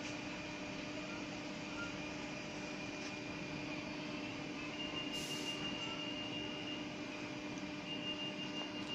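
Class 681 Pendolino electric train standing at a platform with its onboard equipment running, giving a steady hum with several held tones. A brief hiss comes about halfway through.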